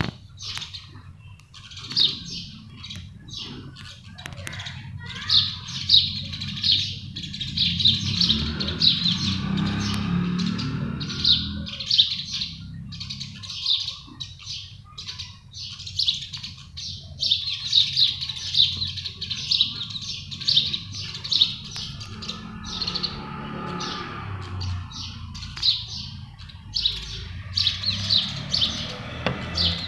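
House sparrows chirping close by: runs of quick, high chirps repeated again and again, with short breaks between runs.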